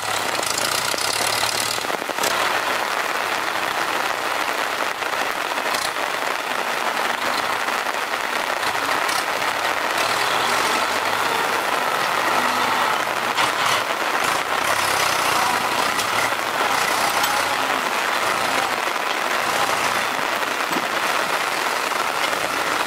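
Farm tractor's diesel engine running steadily while it works its hydraulic log grab, with a few short knocks now and then.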